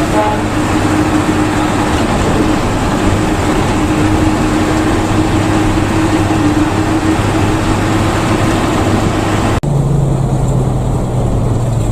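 A moving bus heard from inside: a steady engine hum under road and tyre noise. About ten seconds in the sound drops out for an instant, then returns as a lower, deeper engine hum with less hiss.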